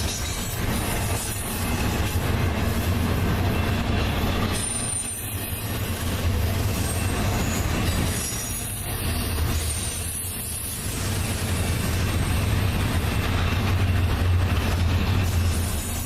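Double-stack freight train rolling past: a steady low rumble of wheels on rail, with a thin high wheel squeal at a few points.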